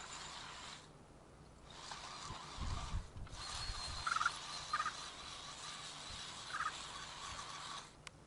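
Ryobi 40V cordless electric tool running a ground-chopping attachment set deep in the soil, so it is working under heavy load. The motor runs with a faint steady high tone and short chopping bursts, cuts out briefly twice, and stops abruptly near the end.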